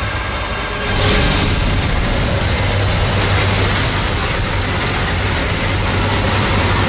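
A motor running steadily with a loud rushing noise over it, getting louder about a second in and then holding steady.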